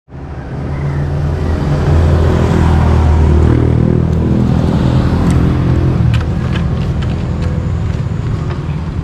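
Vehicle engine running as it drives, its note easing about six seconds in, with rattles and knocks from about four seconds on.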